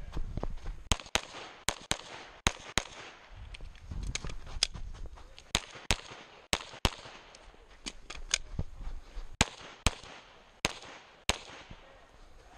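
Glock 34 9 mm pistol firing rapid pairs of shots, about two per target, with short gaps between the pairs as a USPSA stage is shot. Each shot is a sharp crack with a brief ring after it.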